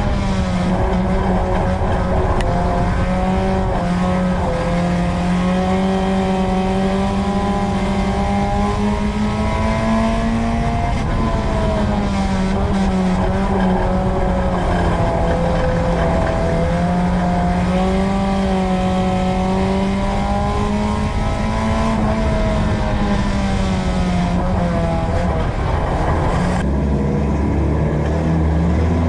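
Dirt-track race car's engine heard from inside the car, running hard with its pitch rising and falling again and again. Near the end the note drops low and then climbs as the engine revs back up.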